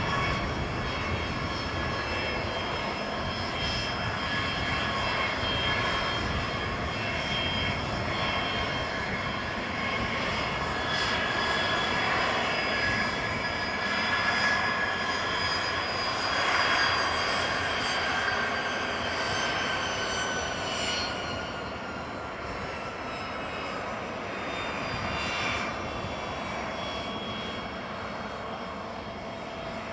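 The twin Williams FJ44-4A turbofans of a Cessna Citation CJ4 business jet running at taxi power: a steady whine of several high tones over a rushing hiss. About two-thirds of the way through, the tones glide slowly lower as the jet taxis past.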